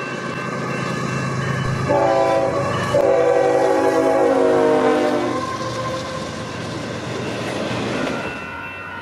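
Union Pacific freight locomotive passing close by, its air horn sounding a short blast and then a longer one whose pitch sags slightly as it goes by, over the diesel engine's low drone. A railroad crossing bell rings steadily throughout.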